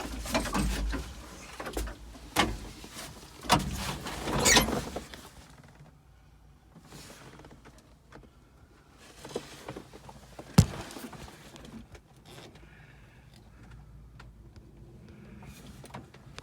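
Knocks, clunks and rustling in a wheel loader's cab for the first few seconds. Then it goes quieter, with a low steady hum and one sharp click about ten and a half seconds in.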